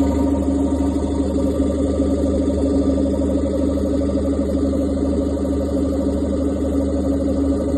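Carrier Carlyle 5H60 reciprocating refrigeration compressor running steadily under test, with an even low hum and a steady mechanical drone.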